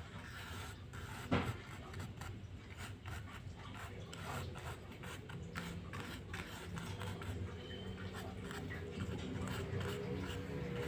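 A wooden stick scratching and rubbing across a sand-art card in many short, quick strokes, with one sharper tap about a second in.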